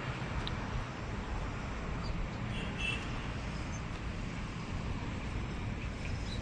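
Steady low engine rumble with a few faint clicks and a brief faint high chirp about halfway through.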